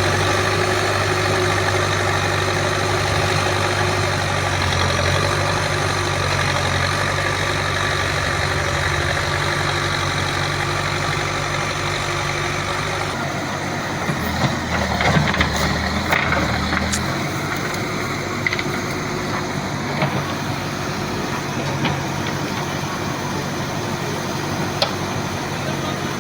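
Backhoe loader's diesel engine running steadily. Its note changes about halfway through, followed by scattered knocks, several close together and then a few more further apart.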